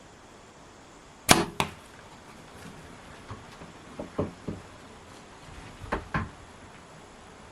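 Compound bow shot: a sharp crack from the string's release and, about a third of a second later, a second crack as the expandable-broadhead arrow strikes the doe. A few fainter knocks and thumps follow twice, a couple of seconds apart.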